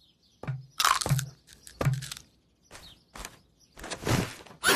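Cartoon crunching and munching of an acorn by a squirrel, a few crisp bites spaced about half a second to a second apart. A sudden loud crash starts near the end.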